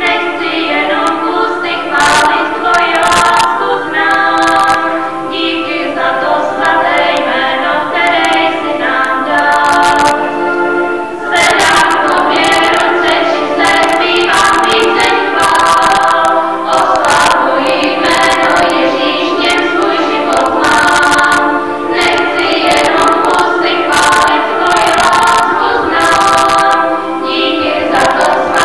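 Young women's choir singing a hymn in several voices, with a short break between phrases about eleven seconds in, as heard through a VHS camcorder's microphone.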